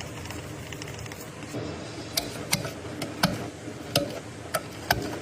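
A run of sharp, separate clicks, about eight over the last three seconds at uneven spacing, over a low steady hum.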